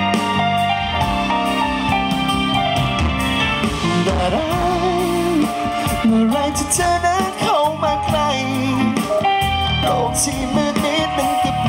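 A live band playing a Thai pop song: acoustic guitars over a drum kit, with a male voice singing wavering, held notes through the middle and later part.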